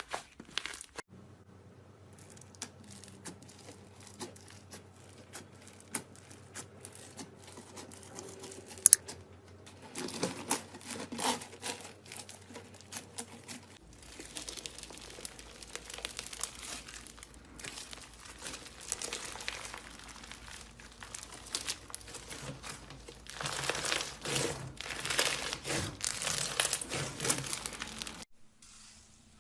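Slime being mixed and kneaded by hand, giving a dense run of small clicks and pops. It is louder about ten seconds in and again for several seconds near the end.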